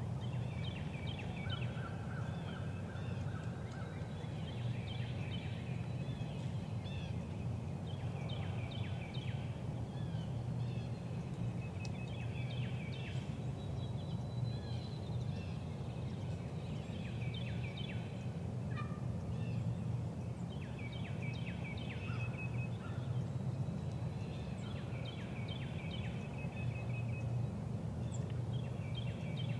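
Eastern wild turkey toms gobbling in short bursts, one every three to four seconds, over a steady low rumble.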